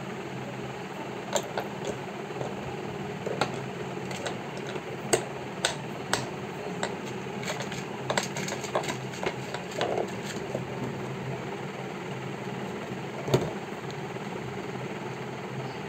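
A baby's hands handling small plastic caps, a tube, jars and a tin, making scattered light clicks and taps, with one sharper knock near the end. Under them runs a steady mechanical hum.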